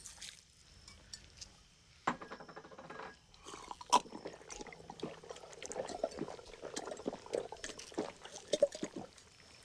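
A man gulping down a glass of sugar water: wet swallowing, slurping and liquid sloshing in an irregular run that starts about two seconds in.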